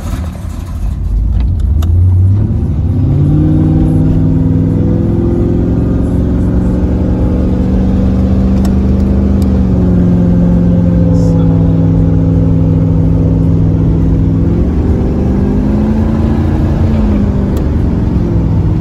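Cammed small-block V8 of a 1986 Camaro IROC-Z, heard from inside the car as it pulls away and accelerates. The engine note climbs over the first few seconds, holds steady, then drops and climbs again about three-quarters of the way through, as the 700R4 automatic shifts up.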